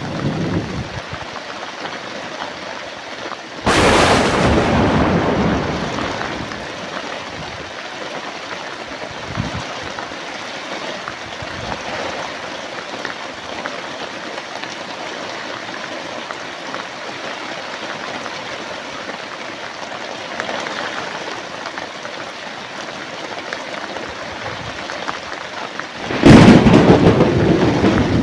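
Steady heavy rain with thunder: a sharp thunderclap about four seconds in that dies away over a couple of seconds, and a loud rumbling peal of thunder near the end.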